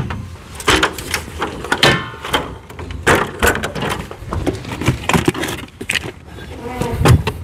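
A fibreglass step ladder and tools being handled and set up against a pickup: a run of irregular knocks, clanks and scrapes, with a short squeak about two seconds in.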